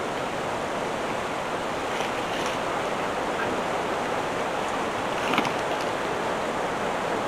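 Steady outdoor rushing noise, with a few faint clicks about two seconds in and a slightly louder one past the five-second mark.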